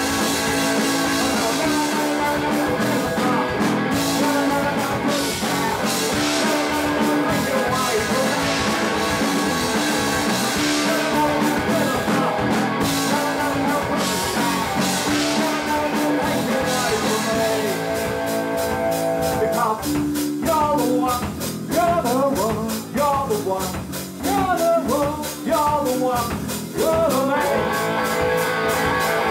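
A live punk rock band playing loud: distorted guitars, bass and drums, with singing. About two-thirds of the way through, the sound thins to a gliding melodic line over fast, even drum beats, and the full band crashes back in shortly before the end.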